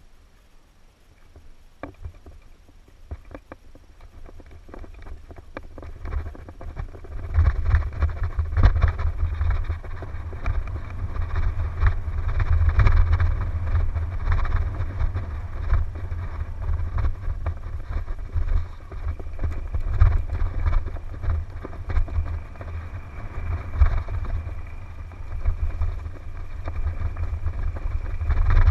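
Mountain bike riding down a rough trail, filmed by a helmet-mounted camera: scattered clicks and rattles as it rolls off slowly, then about seven seconds in the sound grows much louder as the bike picks up speed, with wind buffeting the microphone and frequent knocks and rattles from the bike over bumps.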